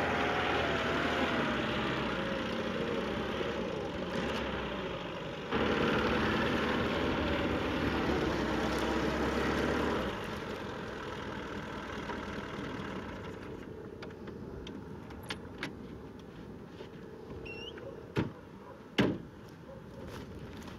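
Lada (Zhiguli) sedan's engine running as the car drives over a rough dirt track, loud and steady for about ten seconds before dropping away to quieter outdoor ambience. The quieter part holds a few faint chirps and two sharp thumps near the end.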